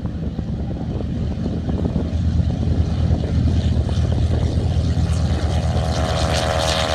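A World War II-era single-engine propeller warplane's engine running as the plane moves along the runway. It is a low throbbing that grows louder, and a steadier, higher engine tone joins in about five and a half seconds in.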